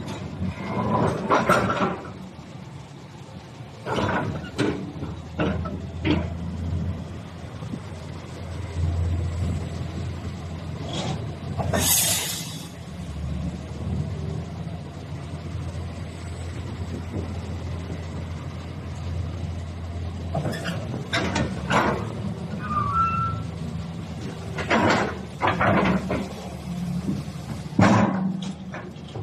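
Hitachi ZX200-6 excavator's diesel engine running at a steady low idle, with repeated metallic knocks and clanks and a brief hiss about twelve seconds in.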